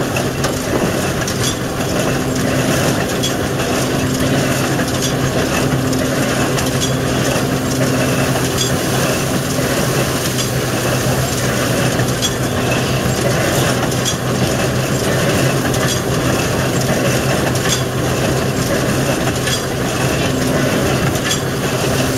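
Ransomes threshing machine and Jones baler running together: a steady low hum with a dense clatter and frequent clicks, unbroken throughout.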